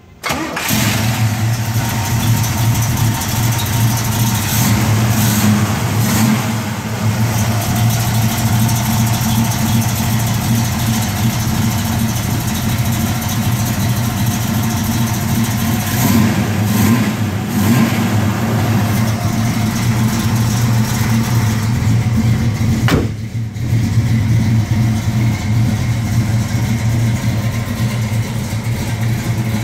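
1969 Chevrolet Camaro SS's V8, badged 383, firing up right at the start and then idling steadily, with a few brief blips of the throttle.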